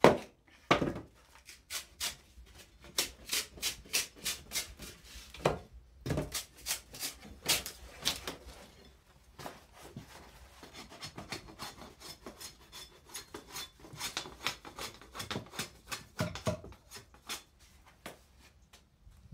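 Hand-riving wooden shingles: a sharp knock of a wooden mallet on a froe right at the start, then a long run of dry wooden clicks, knocks and crackles as the board is split and worked, with a denser stretch of fine crackling in the middle.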